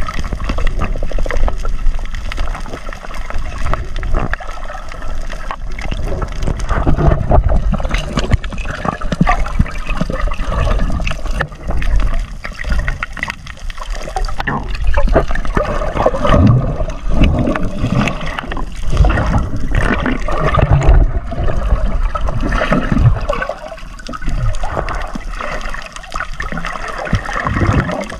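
Muffled water sloshing and gurgling around an underwater camera, with bubbles and swimmers' fin kicks making irregular swells.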